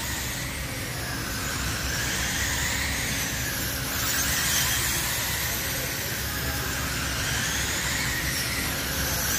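A pack of radio-controlled midget race cars lapping a clay oval, their motors whining high and sliding up and down in pitch as the cars accelerate and slow through the turns.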